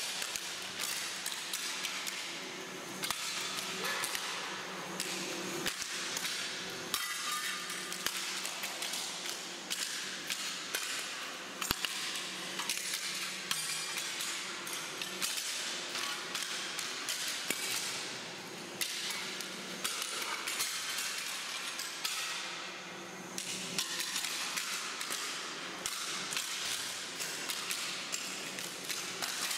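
Footsteps crunching over sheets of paper laid across the whole floor: a continuous crackling and rustling full of small sharp clicks, over a steady low hum.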